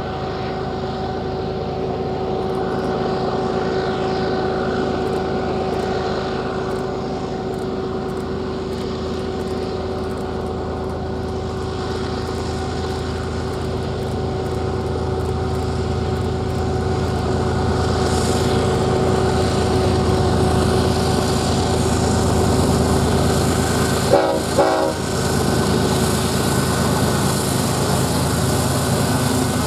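BNSF diesel freight locomotives running as they approach and pass, a steady engine drone with the rumble of the train's cars on the rails, growing louder as the train comes closer. Two brief sharp sounds stand out about three-quarters of the way through.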